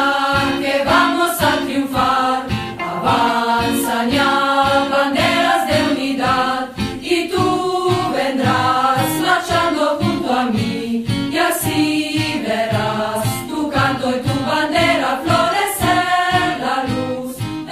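A choir singing a rousing marching song over music with a steady beat.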